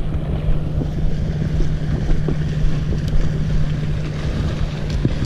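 Heavy wind buffeting the microphone over choppy sea, with a steady low hum running underneath.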